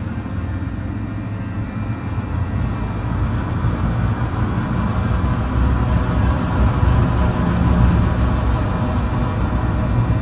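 Dark ambient background music: a low rumbling drone with faint held tones above it, growing slightly louder partway through.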